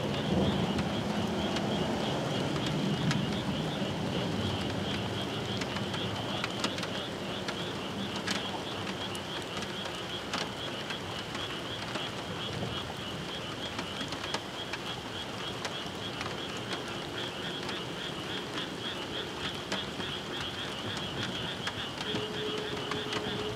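Night-time chorus of chirping insects or frogs, a dense, rapidly pulsing high-pitched trill that runs on without a break, over a low rumble of distant rail-yard noise that is louder in the first few seconds. Near the end a steady hum comes in as a Shinkansen train approaches.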